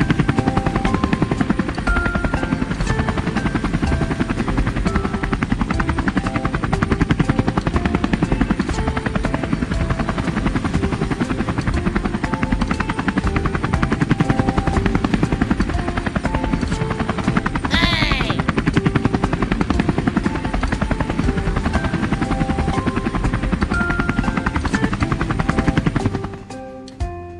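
A loud, steady, rapid mechanical chopping noise, with short notes of a tune over it and a brief rising whistle about eighteen seconds in; it stops just before the end.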